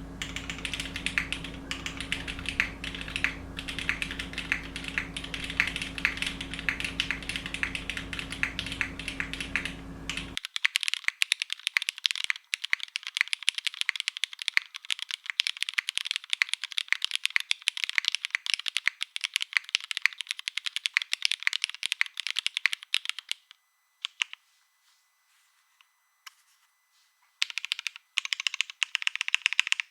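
Typing on a gasket-mounted Saevus Cor65 mechanical keyboard with lubed Cherry MX Black linear switches, GMK keycaps and no foam: a steady, dense run of key clacks. The typing stops for about four seconds and picks up again near the end.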